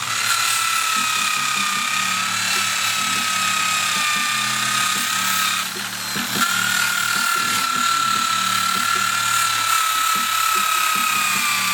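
A handheld power tool's motor running at high speed with a steady whine that wavers slightly in pitch. About six seconds in it cuts out for half a second, then spins back up.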